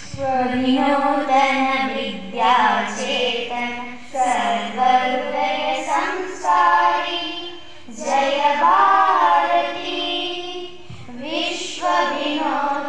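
Group of schoolgirls singing a Kannada prayer song together into a microphone: long held notes that waver in pitch, with a new phrase starting about every two seconds.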